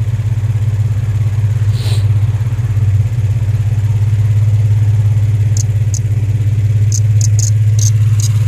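2003 Infiniti G35's 3.5-litre V6 running at idle with a steady low rumble; the engine has a misfire and lacks power. Several short, light clicks come in the second half.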